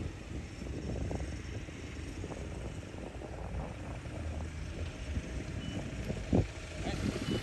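Golf cart riding along: a steady low rumble with loose rattles, and a sharp knock about six and a half seconds in.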